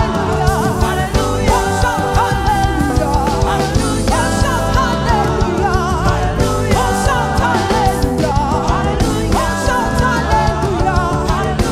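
Loud praise-and-worship music: a sung melody over sustained chords with a steady drum beat.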